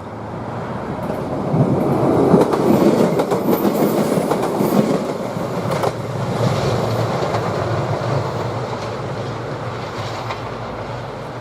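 381 series electric express train passing, its wheels clattering over the rail joints. The noise swells over the first two seconds, is loudest for a few seconds, then slowly fades as the train runs on.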